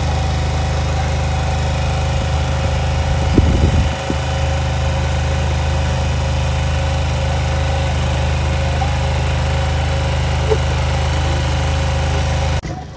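Small portable petrol power generator running steadily with an even engine hum. The hum cuts off abruptly just before the end.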